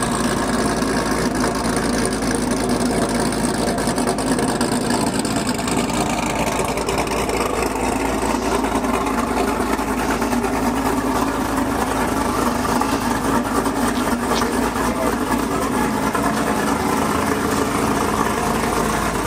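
Sixth-generation Chevrolet Camaro's engine idling steadily, without revving.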